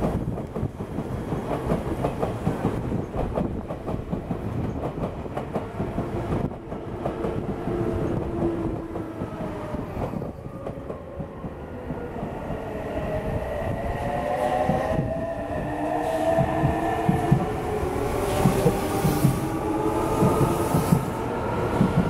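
Electric commuter trains on the Odakyu Line: wheels clacking rapidly over rail joints and points. From about halfway, an Odakyu 8000-series train's electric traction motors add a whine that glides upward in pitch, and the clacking gets louder toward the end as the train passes close by.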